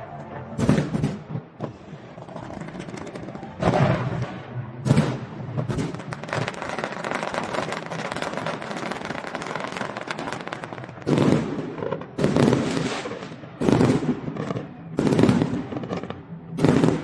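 Festive fireworks display: aerial shells going off in loud booms with echoing tails, a few seconds apart, with a long stretch of dense crackling in the middle between them.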